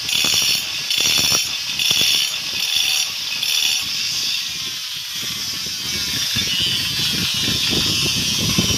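Angle grinder scoring grooves into a flour-mill millstone, in short repeated passes about every two-thirds of a second for the first four seconds. This is dressing the stone face rough so it grinds flour properly. After that the strokes stop and a steadier grinding hiss carries on.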